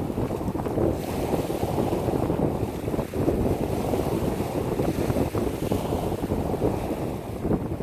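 Waves breaking and washing over a pebble beach in a continuous rushing surge, with wind buffeting the microphone.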